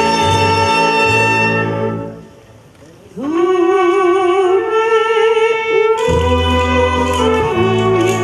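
Wind band playing a held chord that dies away about two seconds in. After a brief gap a soprano slides up into a long note with vibrato over light accompaniment, and the full band with bass guitar comes back in about six seconds in.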